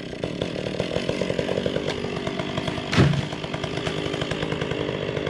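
Two-stroke chainsaw running steadily with a fast, even pulse, and one sharp knock about three seconds in.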